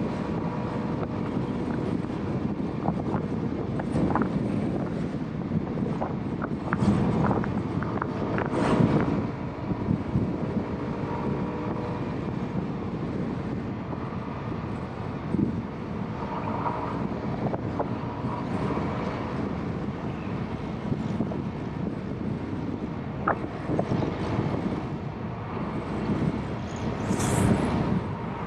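Motorbike engine running steadily at highway cruising speed, mixed with road and wind noise on the rider's camera. There are scattered short knocks, and a brief louder rising rush near the end.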